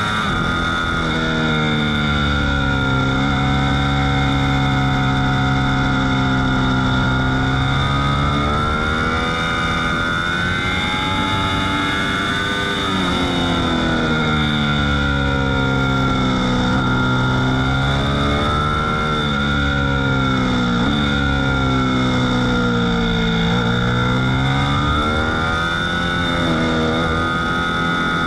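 Ducati V4 S sport bike's V4 engine at high revs, heard from on board at track speed. Its pitch holds high, then falls and climbs again and again as the bike brakes and accelerates through corners, with a few sudden drops in pitch, over a steady high whine.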